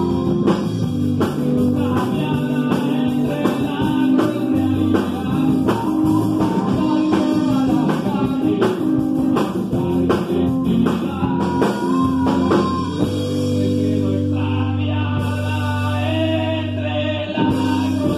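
Live rock band playing: singing over electric guitar, electric bass and a drum kit. Near the end the drums drop out for a couple of seconds under long held notes, then come back in.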